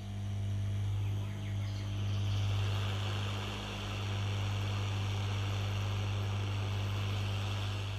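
A steady hiss over a constant low electrical hum. The hiss builds about a second in and stops abruptly at the end.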